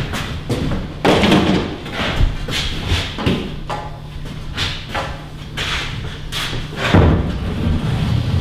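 An irregular series of sharp knocks and thuds, about two a second, over a steady low hum.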